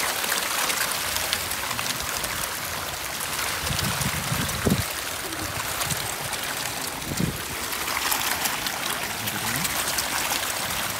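A dense school of fish thrashing and splashing at the surface, churning the water into a continuous crackling, hissing splash.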